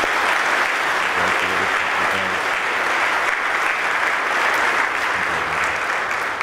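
A church congregation applauding steadily to welcome a newly baptized baby, the clapping beginning to die away at the very end.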